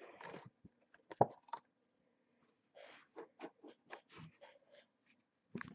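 Hands handling a cardboard figure box and its packaging: scattered light taps, scrapes and rustles, with one sharper knock about a second in and a quick run of small ticks later on.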